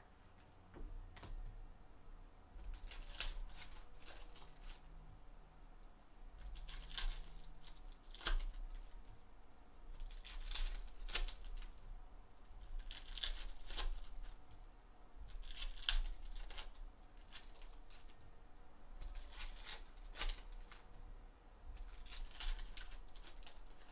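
Foil wrappers of 2020 Donruss Optic Football hobby packs being torn open and crinkled by hand, in short crackly bursts every second or few.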